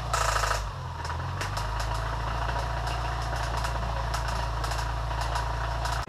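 Subaru Forester EJ25 flat-four engine running at idle with repeated sharp knocking from inside: rod knock from a failing engine. A louder rush of noise comes briefly at the very start.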